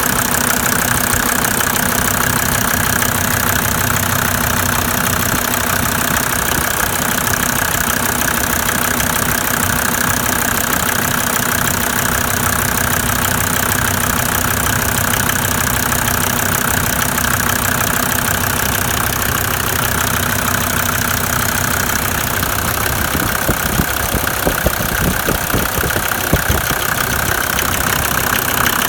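Mercedes-Benz OM605 five-cylinder diesel in a W124 idling unevenly, with an irregular knocking clatter and a few sharper knocks in the later part. The rough running and knock persist despite new injector nozzles, adjusted injectors and new injection lines, and their cause is still unknown to the owner.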